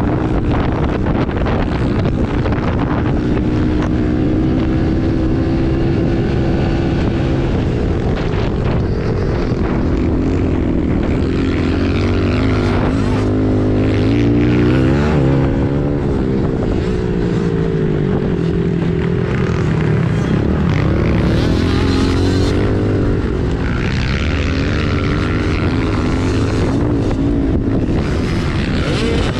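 110cc four-stroke pit bike engine heard close up from on board, revving up and down with throttle changes and gear shifts while riding a dirt track.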